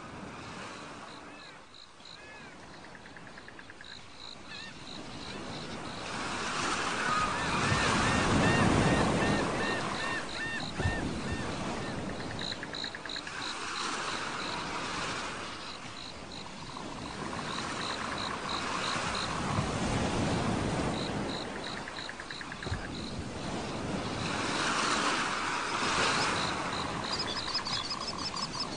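Ocean surf, waves swelling and breaking about every five to six seconds, with a high chirping repeating in short runs over it.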